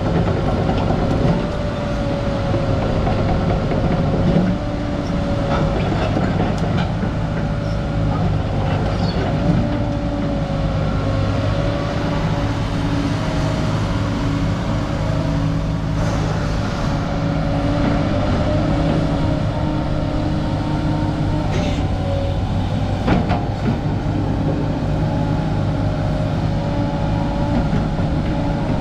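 Sany SY220C-9HD hydraulic excavator running: a steady engine hum with a slightly wavering whine on top, and a few sharp clicks or knocks now and then.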